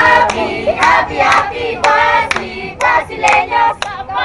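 A crowd of marchers singing together in unison, with hand clapping about twice a second.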